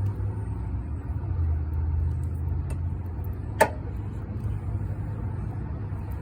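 Scissor jack being cranked up by hand under a car, with one sharp click a little past halfway, over a steady low rumble.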